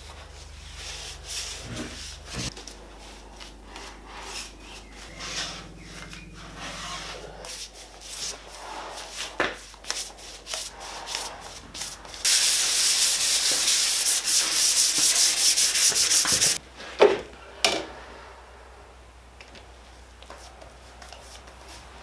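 Paintbrush strokes spreading marine varnish on wood, the bristles scraping and rubbing over the boards. From about halfway through comes a loud, dense run of fast back-and-forth strokes lasting about four seconds, followed by a couple of sharp knocks.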